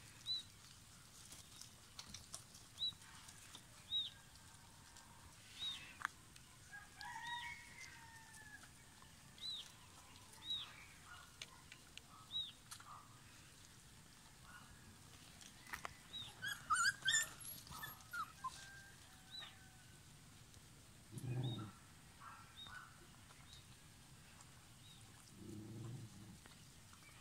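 Puppies squeaking and whining in many short high cries, with a busier flurry of squeals about two-thirds of the way through, while they crowd the mother dog to nurse. There are two short low thuds near the end.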